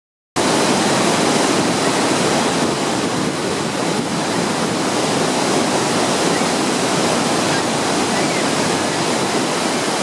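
Bridal Veil Falls at Niagara crashing onto the boulders close by: a loud, steady rush of falling water.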